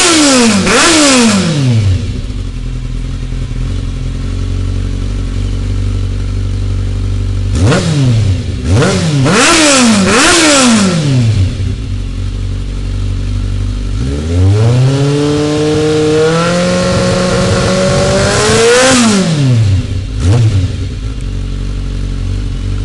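A warm vehicle engine revved in quick throttle blips with idling between, then taken up in a long climb, held high for a few seconds and dropped back to idle, with one more short blip near the end.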